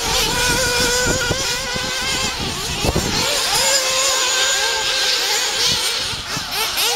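Small engines of several radio-controlled off-road buggies buzzing at a high pitch that rises and falls as they race, with a single knock about three seconds in.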